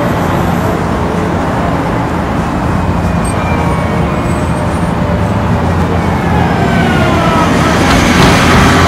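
Steady road traffic noise with a siren tone gliding down in pitch through the middle, getting a little louder near the end.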